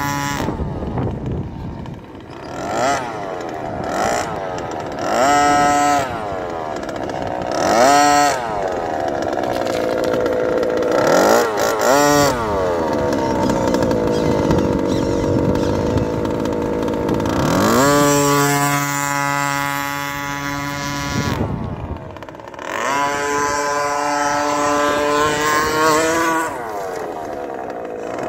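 Radio-controlled short-course truck's small two-stroke engine, revving in repeated bursts as it accelerates and slows, its high buzzing pitch sweeping up and down, with a few stretches of steady running at high revs.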